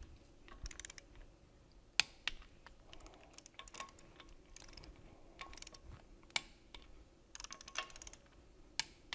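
Torque wrench on differential cover bolts: short runs of ratchet ticking and several single sharp clicks as the bolts are brought up to 19 foot-pounds in a cross pattern.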